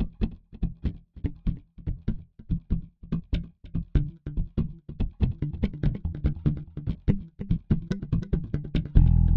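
Background music: plucked guitar notes at about three a second over a bass line, with a fuller, louder band sound coming in just before the end.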